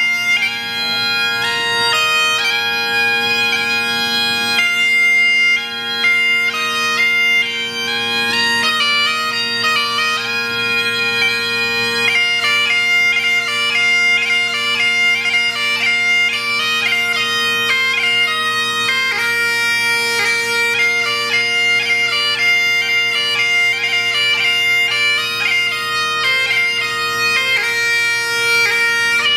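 Great Highland bagpipe playing a tune over its steady, unbroken drones.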